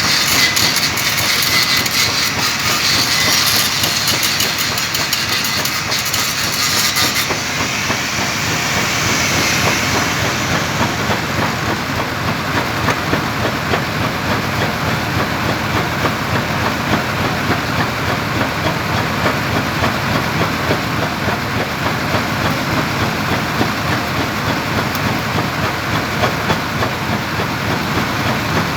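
Arc welding on a 12-inch stainless steel pipe: a steady crackling hiss. About seven seconds in, the sharpest high hiss drops away.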